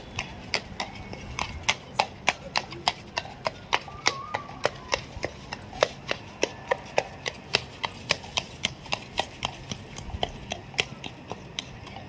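A carriage horse's hooves clip-clopping on a paved road, a steady beat of about three sharp strikes a second.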